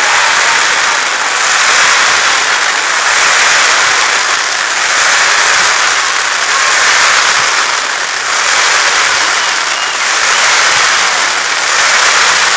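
Dense, continuous crackling of fireworks, a loud hissing crackle that swells and eases about every second and a half.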